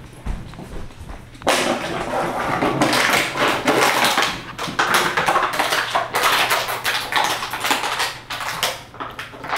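Empty plastic water bottle crinkling and crackling as a puppy chews and bats it, a dense run of rapid clicks and crunches starting about a second and a half in.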